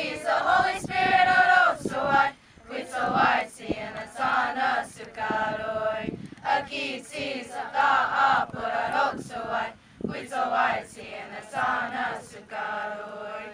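Comanche youth choir, mostly girls' and women's voices, singing a Comanche hymn without instruments, in phrases with short breaths between them. The singing stops near the end.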